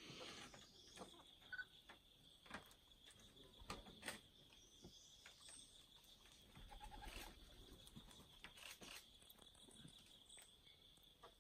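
Quiet forest ambience: a steady high-pitched insect drone, with scattered soft clicks and a few short bird calls.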